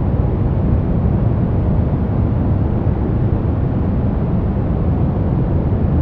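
Steady, unchanging sleep noise of the kind played for babies. It is deep and muffled, with most of its weight in the low end and little hiss.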